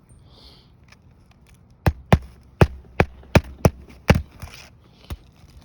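Hammer blows nailing down a replacement roof shingle: about eight sharp knocks at uneven intervals, beginning about two seconds in.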